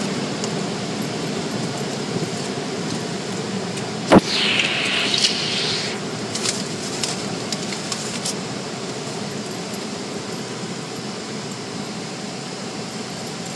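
Steady hum of a car's running engine and cabin, heard from inside as it rolls out of a car wash tunnel. About four seconds in comes one sharp knock, followed by a hiss lasting about a second and a half.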